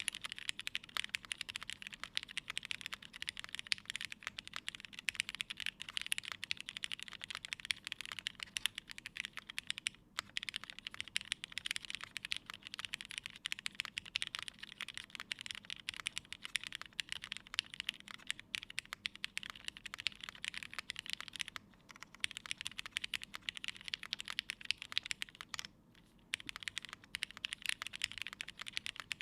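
Fast typing on a GHS.Rar mechanical keyboard with lubed Cherry MX Black Hyperglide linear switches, a half polycarbonate plate and GMK keycaps. It is a steady run of key clacks, broken by three brief pauses.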